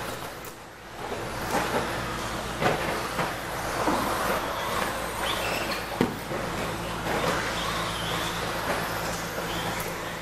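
Electric RC stadium trucks with 13.5-turn brushless motors racing on an indoor dirt track: a steady wash of motor whine and tyre noise over a low steady hum, with sharp knocks about two and a half and six seconds in.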